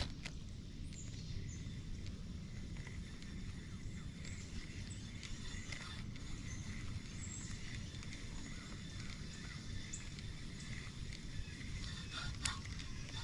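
Outdoor ambience on the water: a low steady rumble with faint, scattered bird chirps, a sharp click at the start and a couple more clicks near the end.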